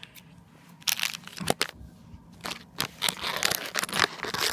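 Plastic blind-pack packet crinkling as it is cut open along the side with scissors and handled, in short irregular crackles that start about a second in and grow denser toward the end.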